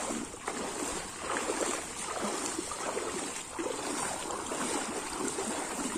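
Several people wading through knee-deep floodwater, the water sloshing and splashing around their legs with each stride.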